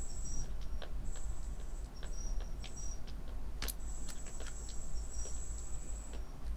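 A two-week-old kitten suckling milk from a feeding bottle's nipple, making small irregular clicks and smacks, one sharper click about halfway through. A high trill starts and stops in the background.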